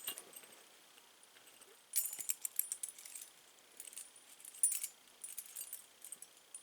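Metal keys jingling and clicking in three short bursts as a key is tried in a Schlage keyed knob's lock cylinder.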